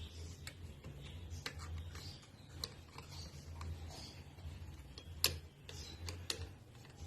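Scattered light clicks and taps of a hand tool on metal screws as the pump housing's screws are tightened crosswise, over a low steady hum. The two sharpest clicks come about five and six seconds in.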